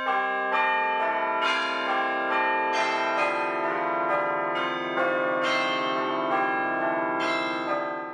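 Church bells ringing a peal, with a new strike about twice a second over the long, overlapping ring of the earlier ones, fading out near the end.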